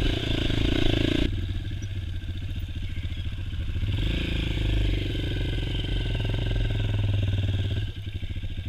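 Honda CRF230's air-cooled single-cylinder four-stroke dirt bike engine running under the rider at steady moderate revs. The engine eases off near the end.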